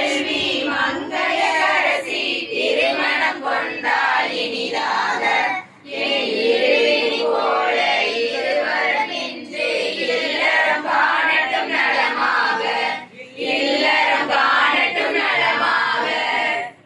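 A group of women singing together without accompaniment, with short breaks between lines about six and thirteen seconds in.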